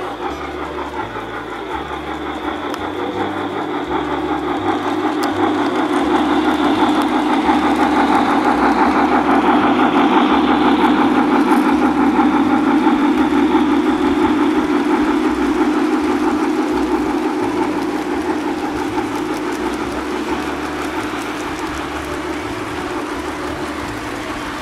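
O-scale three-rail toy train running on outdoor track: a steady rolling rumble of its wheels on the metal rails, growing louder as it approaches, loudest around the middle, then easing off.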